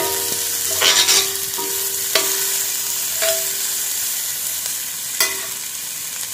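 Sliced bell peppers and aromatics sizzling in oil in a stainless steel pot. A slotted metal spatula stirs and scrapes them, striking the pot with several ringing clinks.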